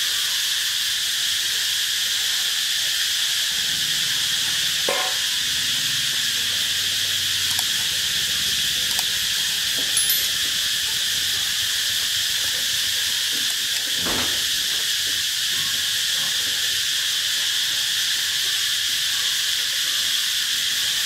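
Steady high-pitched insect chorus, like crickets or cicadas, with a couple of faint knocks.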